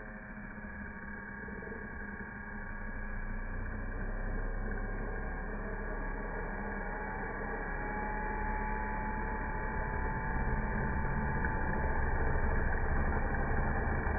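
Electric motors of a toy launcher spinning up their two launch wheels: a steady hum that grows louder over the first several seconds and then holds, with a faint whine in the middle.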